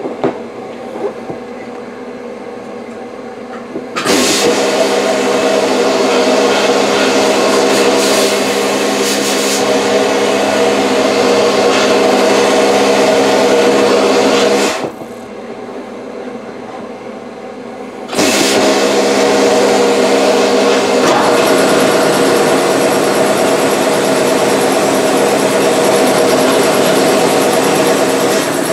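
Vapor blasting cabinet blasting brake caliper slide pins and bolts in two long blasts, the first starting about four seconds in, the second after a pause of about three seconds. A steady machine hum runs underneath.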